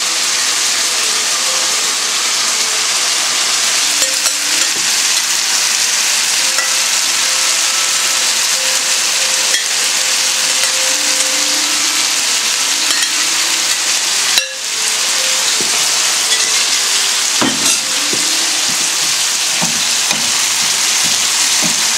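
Food sizzling steadily in a hot frying pan as broccoli is tipped onto pasta and vegetables and a wooden spatula stirs them. The sizzle drops out briefly about halfway through, and there are a few low knocks of the spatula in the pan near the end.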